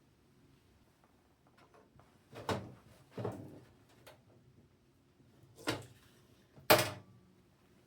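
Handling noise from a PC case and its parts: four separate knocks and clacks as pieces are moved and set down, the last the loudest.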